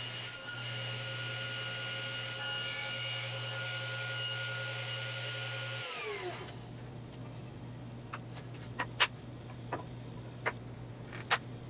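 Table saw running freely with a steady whine, then switched off about six seconds in so that the whine drops in pitch as the blade spins down. After that come a few sharp knocks of 2x4 pieces being handled over a low hum.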